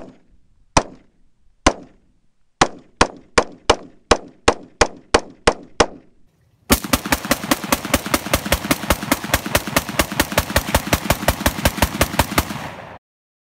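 AR-15-style rifle gunfire. First come three single shots about a second apart, then a string of about eleven at roughly three a second. Then comes a long run of very rapid shots, about nine a second, for some six seconds, which cuts off suddenly near the end.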